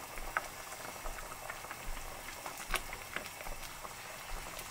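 Pot of chili and bell-pepper sauce boiling on the stove, a steady bubbling hiss with scattered small pops of bursting bubbles.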